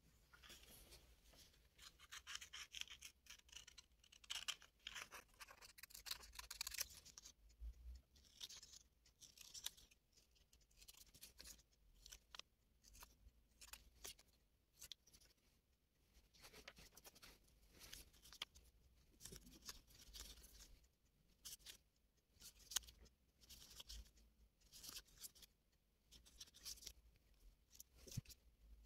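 Scissors cutting paper sheets: a run of quiet, irregular snips with paper rustling between them.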